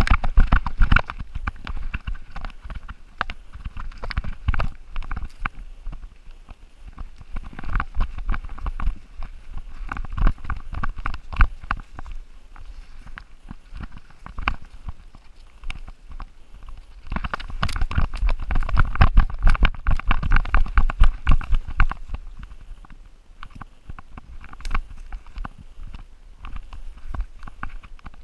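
A chocolate Labrador running through forest undergrowth, heard through the camera strapped to its body: quick irregular thumps of its strides jolting the mount, with brush rustling. The strides come thickest in two stretches, about a third of the way in and again past the middle, easing off between.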